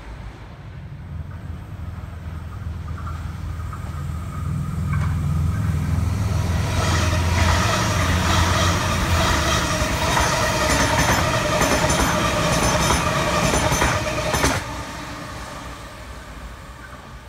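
Sydney Trains Waratah double-deck electric train passing close by. A low rumble builds as it approaches, then a loud, rhythmic clatter of wheels over the rails runs for about eight seconds. It drops off sharply as the last car goes by, leaving a fading rumble.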